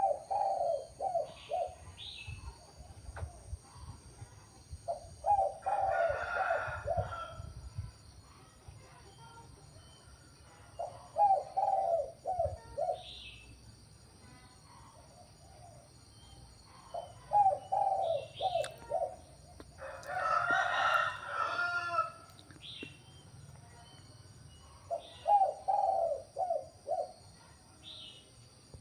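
Captive spotted dove cooing, repeating its short phrase of several low, stuttering coos five times, about every six seconds. Twice a louder, longer crow cuts across it, typical of a rooster, with faint chirps of small birds between.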